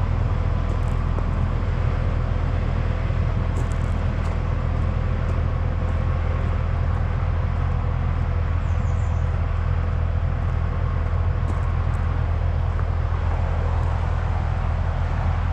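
An engine running steadily, a low, even drone.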